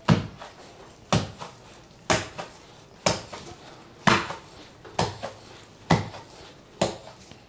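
A wooden pestle pounding fufu dough in a wooden mortar: eight dull thuds, about one a second, steady in rhythm, with the dough turned by hand between strokes.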